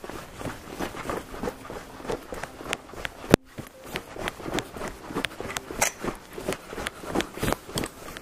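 Quick running footsteps on a wet asphalt pavement, a few footfalls a second, with one sharp knock about three seconds in.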